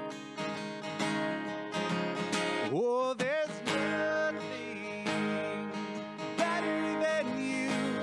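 Contemporary worship song playing between sung lines: acoustic guitar strumming over sustained chords, with a sliding note about three seconds in.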